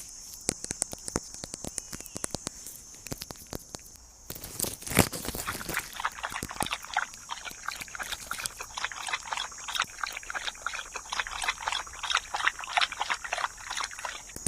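Close-miked ASMR tapping: scattered fingertip taps and clicks, a single louder knock about five seconds in, then fast, dense tapping and scratching from about six seconds on, over a steady high hiss.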